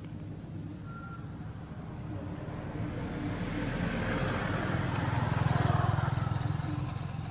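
A motor vehicle passing on the road: a low engine hum that swells with rushing noise, loudest about five to six seconds in, then fades.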